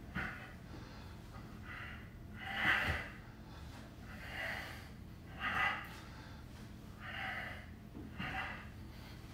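A man breathing hard from exertion during repeated sit-up-style straddle-ups: about seven sharp, noisy breaths, one every second or so, the loudest about three seconds in.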